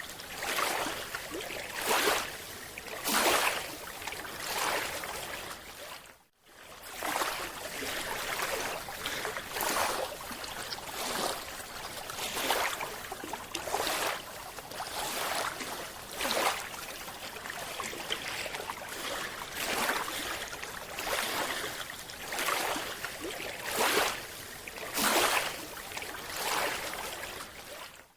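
Water rushing and sloshing in repeated surges, roughly one every second or so, with no steady tone. The sound cuts out briefly about six seconds in.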